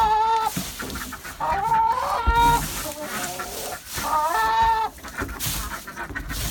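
Backyard hens calling inside the coop: three separate drawn-out squawking calls, each under a second, with quieter clucking between them.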